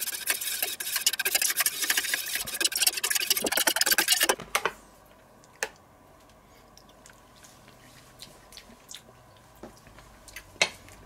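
Wire whisk beating a creamy sauce in a stainless steel bowl: a rapid metallic scraping clatter that stops about four and a half seconds in, followed by only a few faint clicks.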